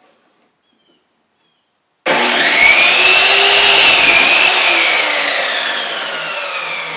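Electric power saw cutting a wooden board: it starts suddenly about two seconds in, and its whine rises a little, then slowly falls and fades toward the end.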